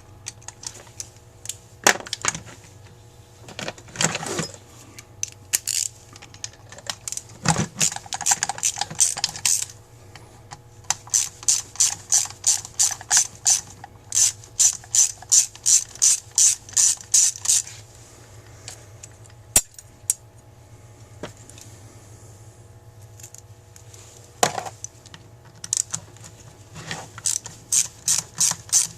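Ratchet tool clicking in runs of rapid, even clicks, about three a second, with pauses and a few single knocks of metal parts in between, as fasteners are backed out of a Carter AFB carburetor during teardown.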